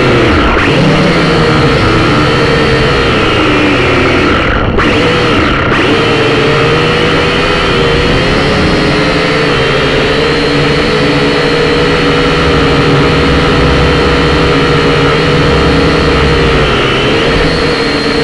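Syma X5C quadcopter's small electric motors and propellers whining steadily, heard up close from the drone's own onboard camera, the pitch wavering up and down as the throttle changes.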